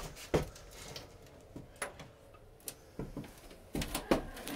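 A handful of short knocks and clicks at irregular intervals, the loudest two near the end.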